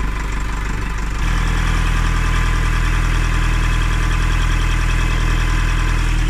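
Sailboat's inboard marine diesel engine running just after its first start following repairs; about a second in it speeds up and gets louder, then runs steadily.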